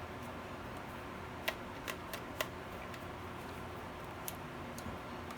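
Scattered small clicks and taps as a screwdriver tightens the screws on the plastic housing of a car door lock actuator, over a steady faint hum.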